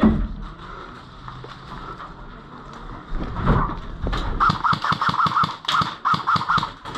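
Airsoft electric gun firing a rapid string of shots, about six a second, each with a short gearbox whine and a click. A single thump comes at the start.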